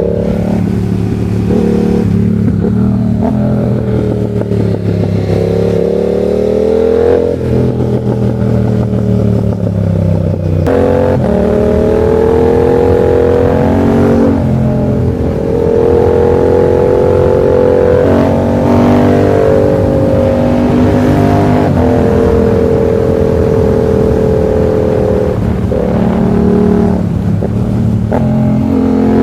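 Yamaha MT-07's 689 cc parallel-twin engine under way, its pitch climbing and falling as the rider works the throttle and gears. It drops sharply a few times early on, then runs fairly steadily through the middle before rising again near the end.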